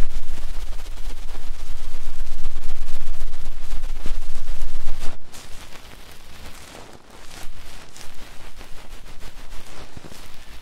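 Fast ASMR ear-massage scratching and knocking on a microphone: a loud, dense run of rapid scratches and taps with a low rumble. About five seconds in it eases to softer, separate scratches and taps.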